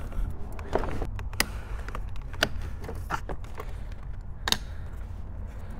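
Scattered light plastic clicks and taps from handling the door handle cable's release tabs and housing inside a pickup truck door, the sharpest click about four and a half seconds in, over a steady low rumble.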